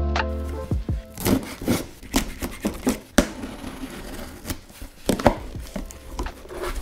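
Background music stops within the first second; then packing tape is peeled and ripped off a cardboard box and its flaps are pulled open, a run of irregular crackling rips and scrapes.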